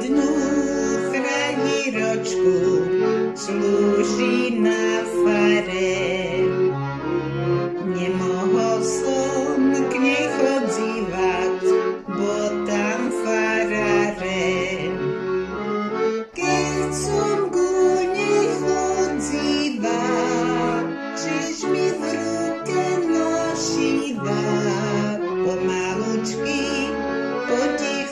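Accordion playing an eastern Slovak folk song: a melody over sustained chords, with a steady rhythmic bass pattern beneath.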